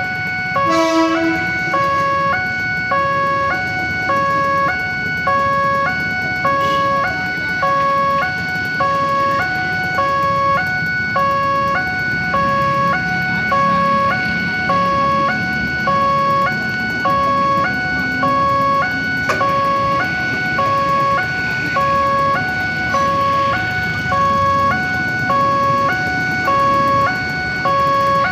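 Railway level crossing warning siren sounding a steady electronic two-tone alarm, stepping between a higher and a lower pitch about once a second, with a low rumble underneath. The siren signals that a train is approaching the crossing.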